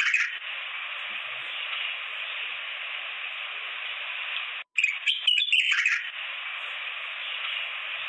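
Birds chirping: a burst of quick, loud chirps over a steady, dense background of bird calls. About four and a half seconds in, the sound cuts out for an instant and the same chirping burst starts again, as a looping sound-effect recording.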